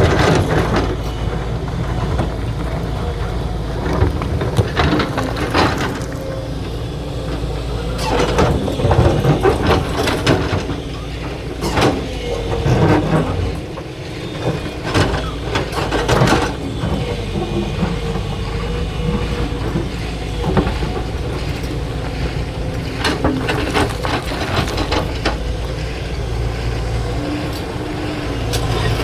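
Excavator's diesel engine running steadily under load, with repeated irregular metallic clanks and knocks from the machine working.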